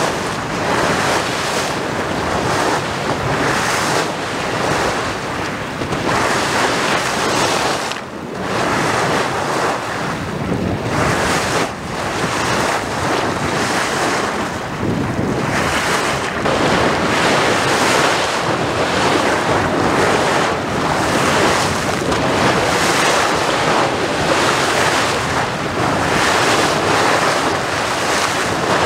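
Power-station cooling-water outfall boiling up at the river surface: steady rushing and splashing of water churned by the air pumped out with it, rising and falling irregularly in strength.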